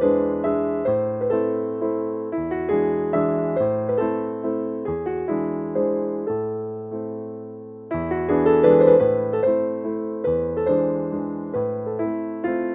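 Background piano music: a gentle melody of struck notes, each fading away.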